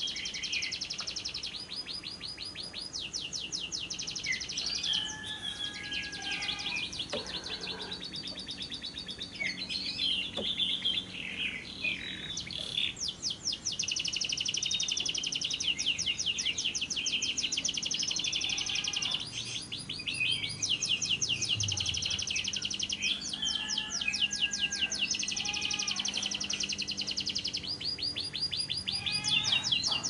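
Lovebird's long 'ngekek' chatter: rapid trills of high repeated notes, run after run with short breaks between them, mixed with squeaky chirps. The longest run goes on for about six seconds near the middle.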